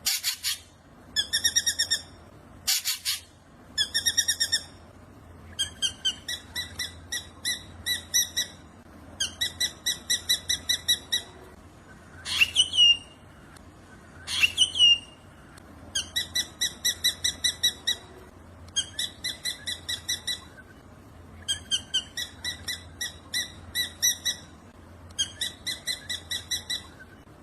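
Black drongo singing: repeated short trains of rapid, evenly pulsed metallic notes, each lasting a second or two with brief pauses between, and two sharp rising whistles about halfway through.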